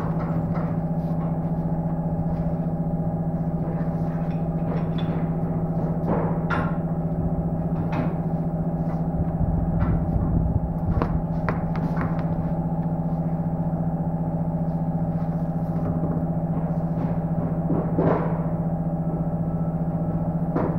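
A steady low hum made of several held tones that do not change, with scattered short knocks and clatters over it.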